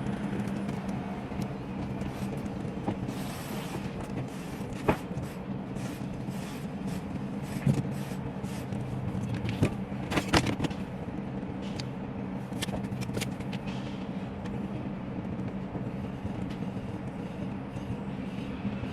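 A steady low engine-like hum with several sharp knocks and scrapes scattered through it, the loudest cluster just past the middle.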